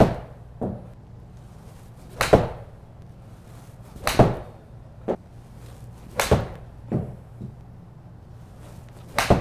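Titleist T200 iron striking golf balls off a hitting mat: five sharp cracks in quick succession, most followed within a second by a softer thud as the ball hits the simulator's impact screen.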